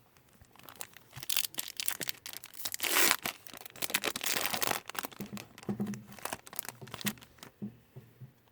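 Trading-card pack wrapper being torn open and crinkled by hand: a run of sharp crackles and rustles, with the loudest tearing about three seconds in and again a second later.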